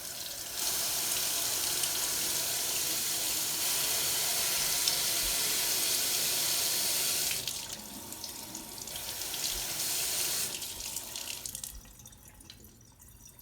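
Water running from a tap to flush debris out of a carburetor part: a steady flow that is cut back about seven seconds in, picks up again briefly, then stops near the end.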